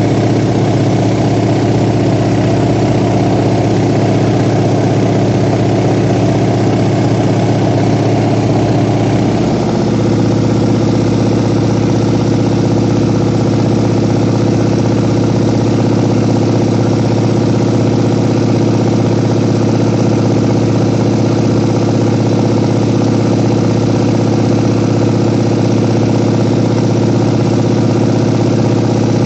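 Steady drone of a light aircraft's piston engine and propeller, heard from inside the cabin in cruise flight. About ten seconds in the tone shifts slightly and then holds steady again.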